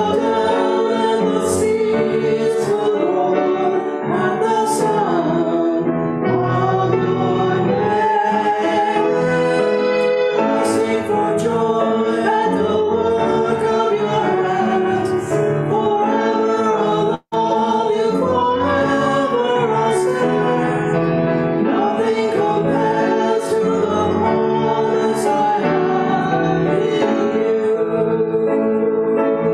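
A hymn sung to keyboard accompaniment, a slow melody of held notes, with a momentary drop-out in the sound a little past halfway.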